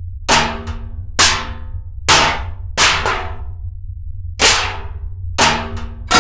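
Metal pots and pans crashing: about ten sharp metallic clangs at irregular intervals, some in quick pairs, each ringing out briefly, over a steady low hum.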